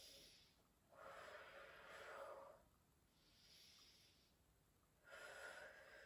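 A woman's slow, deep breathing, faint: two full breaths, each a short, higher, hissy in-breath followed by a longer, lower out-breath.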